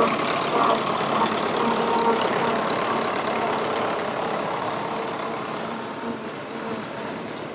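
An engine running steadily at idle with a rapid pulsing beat, gradually fading.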